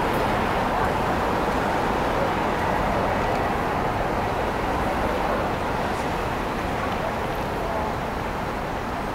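Steady city street noise: road traffic running past a busy crossing, a continuous even rumble and hiss.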